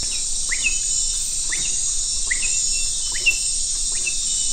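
Dense night chorus of insects in the Amazon rainforest: a steady high-pitched trilling hiss, with a short rising chirp from another animal repeated about every three-quarters of a second.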